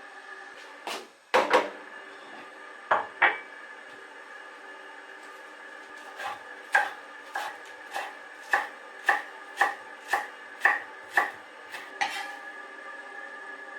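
Knife chopping food on a cutting board: a few scattered knocks, then a run of steady chops about two a second that stops near the end. A steady hum sounds underneath.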